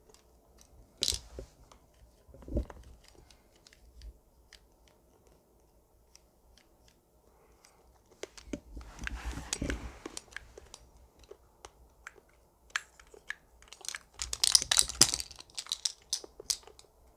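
A plastic fidget toy being handled close to the microphone: scattered light clicks and taps, with two louder stretches of handling noise about a second long, one about halfway through and one near the end.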